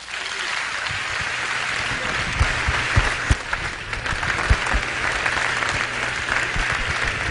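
Large auditorium audience applauding steadily, a dense wash of many hands clapping, with occasional louder claps standing out.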